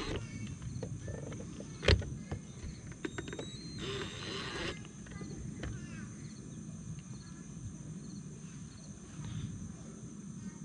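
A sharp click about two seconds in, then a brief whir of a small cordless drill about four seconds in, as the top cover of a trolling motor's head is fitted and screwed down. Insects chirr steadily behind.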